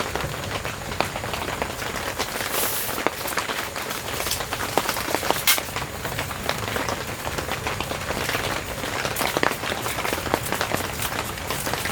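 Rain falling, with dense irregular drops pattering and a few louder single hits.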